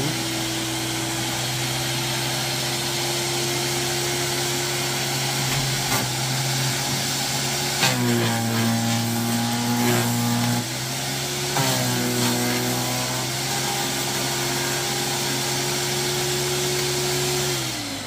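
Zubr electric garden branch shredder running steadily. Twice, about 8 and 11.5 seconds in, its pitch drops for a couple of seconds as the cutter bites into a branch being fed in. Near the end the motor is switched off and starts to wind down.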